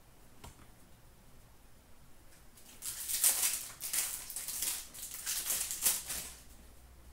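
Foil wrapper of an Upper Deck SP Authentic hockey card pack crinkling and tearing as it is opened by hand: a run of crackly rustles starting a few seconds in and lasting about three and a half seconds.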